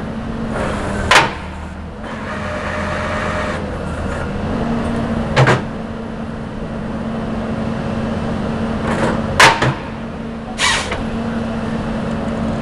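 Caterpillar 320D excavator's engine and hydraulics running with a steady hum that swells and drops as functions are worked, while a Ponsse H7 harvester head is cycled empty. Four sharp metallic clanks ring out as its arms and rollers move.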